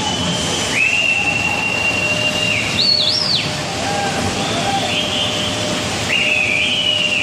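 Shrill whistles, four or five in turn: mostly long held tones, one rising and wavering about three seconds in. Under them runs the steady noise of a tunnel boring machine's cutterhead grinding through a concrete headwall, with crowd voices.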